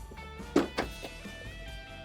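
Background music with guitar: held notes and a strummed chord about half a second in.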